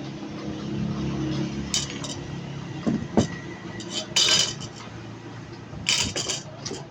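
Metal tools and parts clinking and clattering on a workbench in a handful of short, sharp knocks, the loudest about four seconds in. A low engine hum runs under the first two seconds.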